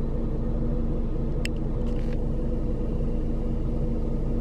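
Steady low drone of a car running at a standstill, heard from inside the cabin, with a steady hum under it. Two faint brief clicks come about one and a half and two seconds in.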